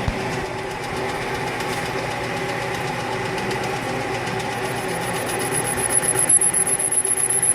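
Metal lathe running with the cutting tool taking a 5-thousandths facing cut across the end of the workpiece, a steady machine hum. A thin high whine joins about halfway through.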